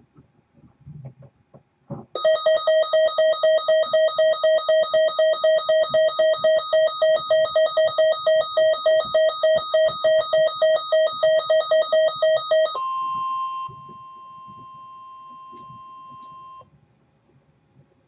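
Weather radio receiver sounding its built-in warning alarm: a loud, rapid beeping of about four beeps a second for roughly ten seconds, set off by a decoded severe thunderstorm warning. It then switches to the broadcast audio, a quieter, steady single alert tone lasting about four seconds before it stops.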